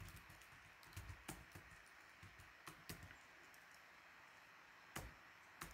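Faint computer keyboard keystrokes, a few scattered clicks with a pause of about two seconds in the middle.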